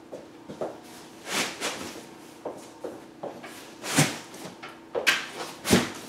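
Large cardboard TV box being worked down over its lower carton tray: cardboard scraping and rubbing with scattered knocks, and a few louder thumps about four and five and a half seconds in.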